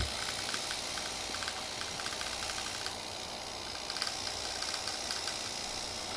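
A small battery-powered toy tank with rubber tracks drives across a wooden floor: its little gear motors run and the tracks rattle with rapid clicking over a steady hiss. The clicking thins out about three seconds in, with one sharper click a second later as it turns.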